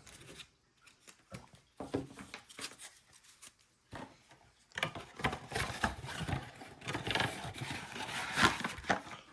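Trading cards and their packaging being handled and flipped through: scattered light clicks and rustles, then a denser run of rustling and sliding from about five seconds in.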